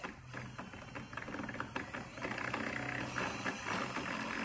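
Cordless drill running with its bit pressed against the car's steel firewall. It chatters with many sharp clicks at first, then settles into a steadier motor whine that rises in pitch in the second half, as it starts to bite into the sheet metal.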